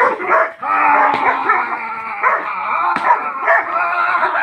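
A dog barking and whining almost without pause, excited during aggression and bite-work training, with a sharp knock about three seconds in.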